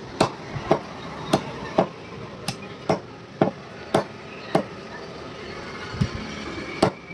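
Heavy chopping knife hacking a country chicken into pieces on a wooden log block: a run of sharp chops, roughly two a second, with a short break about four and a half seconds in.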